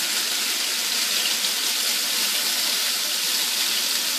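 Marinated chicken pieces shallow-frying in hot oil in a frying pan: a steady, even sizzle.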